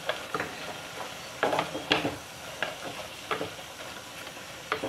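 Wooden spatula stirring wet cooking greens in a clay pot, a string of short scrapes and knocks against the pot's sides over a low sizzle.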